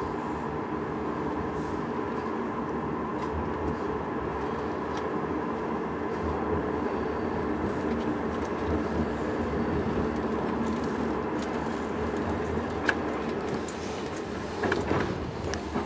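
Passenger train coach pulling out of a station, heard from inside: the steady rumble and hum of the moving train. A few sharp clicks and knocks come near the end.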